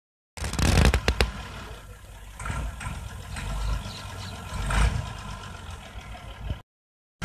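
Massey Ferguson 240 tractor's three-cylinder diesel running as it pulls a heavily loaded fodder trolley through the soft field. A rough rumble runs underneath, with a few sharp clicks about a second in. The sound cuts off suddenly near the end.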